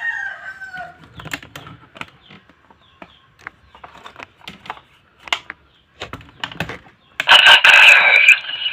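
Plastic clicks and snaps of the DX Garren Buckle toy belt being handled and its card slot and buckle operated, then about seven seconds in the belt's electronic transformation sound effect starts suddenly and loudly through its small speaker.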